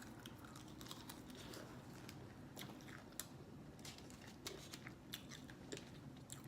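Faint close-up chewing of crispy sauced chicken wings, with scattered small crunches and wet clicks.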